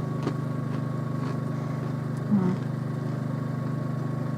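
A steady low hum with a faint high whine over it, marked by a few faint clicks and one brief low sound about two seconds in.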